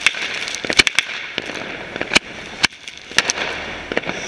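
Firecrackers going off all around in irregular sharp cracks, over the fizzing of a firework fountain spraying sparks that dies away about two and a half seconds in.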